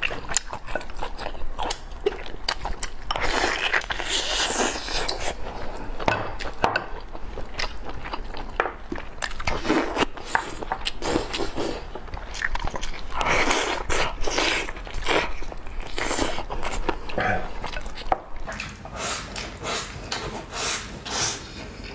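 Close-miked eating sounds: chewing and biting into food, with short clicks of chopsticks against bowls.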